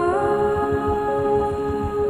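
Background music: a sustained note that slides up in pitch just after the start, over a low pulsing beat.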